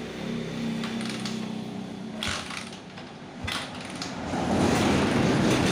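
Motorcycle engine sound on a Honda GL Max: a low steady running hum with a few sharp mechanical clicks, then a louder, rougher rumble from about four and a half seconds in.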